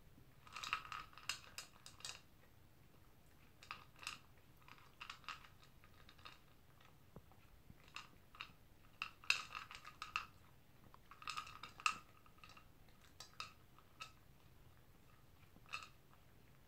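Toy poodle eating from a plastic bowl: short bursts of crunchy chewing and clicks of food and teeth against the bowl, coming every second or two.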